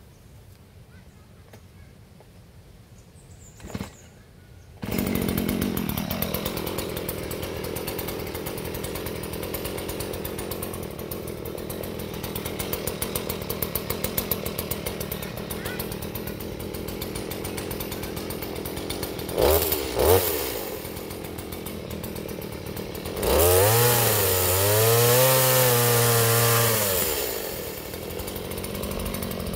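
Stihl two-stroke chainsaw pull-started: it catches about five seconds in, revs and settles into a steady idle. It gives two quick throttle blips around twenty seconds in. It then runs at high revs into coconut palm wood for a few seconds near the end, its pitch sagging and rising under load, before dropping back to idle.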